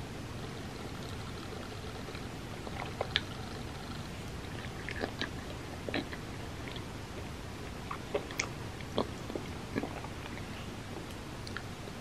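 Close-miked chewing of soft mochi ice cream: scattered short wet smacks and clicks of the mouth, most of them in the middle of the stretch, over a steady low hum.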